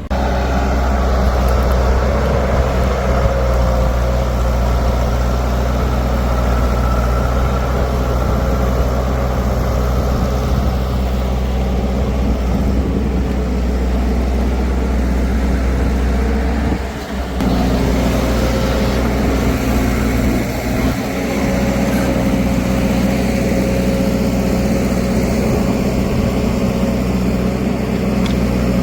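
Heavy diesel engine running steadily at a constant pace, with a deep rumble and a steady hum above it. The sound briefly drops away about two-thirds of the way through.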